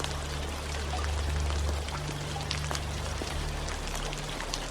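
Steady rain falling, an even hiss dotted with many separate drop ticks, over a low steady hum.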